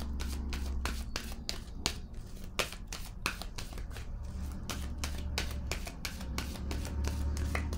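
Tarot card deck shuffled by hand: a run of quick, irregular card clicks, a few a second.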